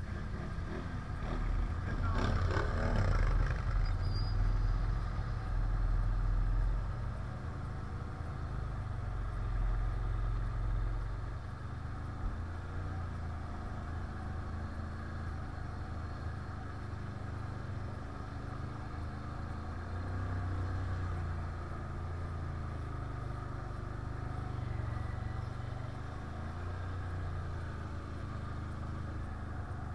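Can-Am 1000 quad's V-twin engine running under way. It is louder and working harder for the first ten seconds or so, with a brief rushing clatter about two seconds in, then settles to a lower, steadier run with the pitch wavering as the throttle changes.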